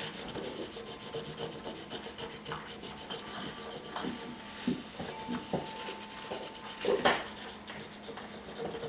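Permanent marker scrubbing back and forth on paper in quick, repeated strokes, coloring in a drawing.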